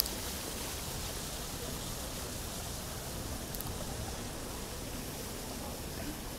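Fountain jets running: a steady hiss and splash of falling water.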